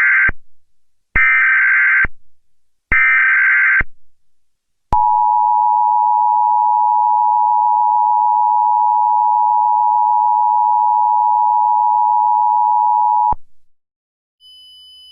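Emergency Alert System opening: the end of one short burst of SAME header data tones and two more bursts, about a second apart. Then the EAS two-tone attention signal, a loud steady dual tone held for about eight seconds, which cuts off sharply. A faint high steady tone starts near the end.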